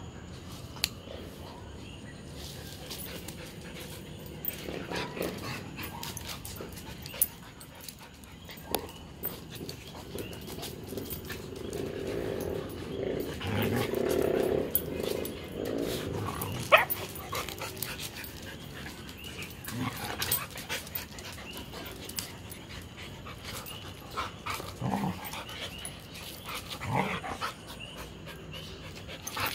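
Two huskies play-fighting. A long stretch of growling and grumbling comes about halfway through, with short barks and yelps later on and a few sharp clicks.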